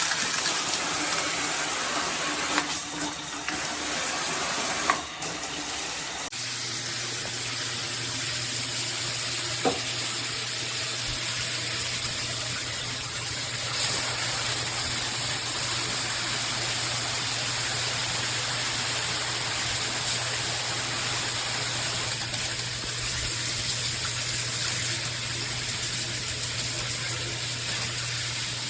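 Water spraying steadily from a shower head. About six seconds in the spray drops a little in level and a steady low hum comes in beneath it.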